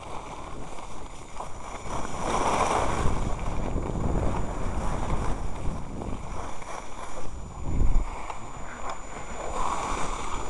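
Wind buffeting the camera microphone while skiing, with skis hissing and scraping over snow; the rush swells louder twice, about two and a half seconds in and near the end.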